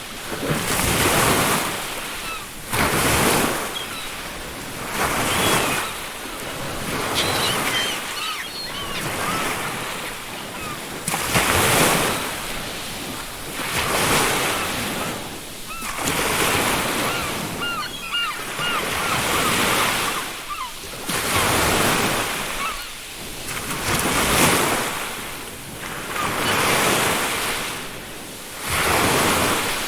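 Ocean surf breaking on a beach, wave after wave swelling and falling back about every two seconds. Faint seagull calls come through twice, once about a quarter of the way in and again past the middle.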